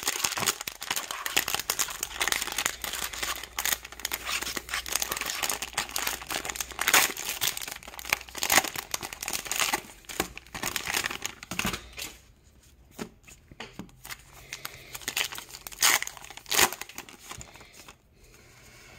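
Plastic and foil baseball card pack wrappers crinkling and tearing as packs are ripped open by hand, dense for the first two-thirds, then quieter with scattered crackles.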